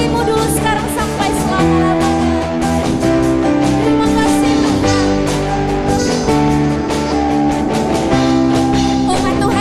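Background music: a song with guitar and singing over a steady beat.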